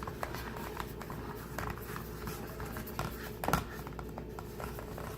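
Faint kitchen handling sounds: light taps and rustles as a store-bought pie crust is handled and laid into a metal pie pan. A slightly louder tap comes about three and a half seconds in, over a steady low hum.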